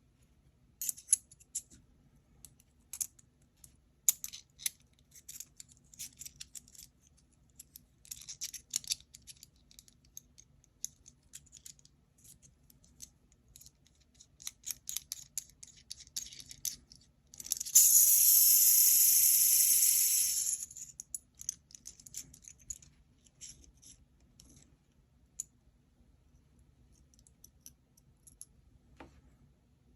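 Aluminium gear fidget toy (KTS Gear Storm) being handled, with light metallic clicks and clacks. Midway its gears are spun, making a loud, steady high-pitched whirr for about three seconds that then dies away back into scattered clicks.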